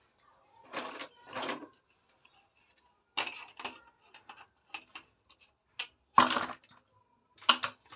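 Plastic toy kitchen pieces being handled: a series of short clicks and knocks, the loudest about six seconds in.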